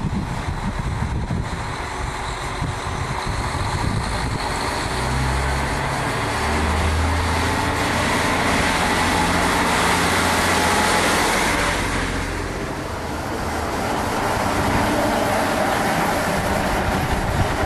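KiHa 40 series diesel railcar pulling out, its diesel engine running under power with a steady low drone, over the rumble of its wheels on the rails as it passes close by.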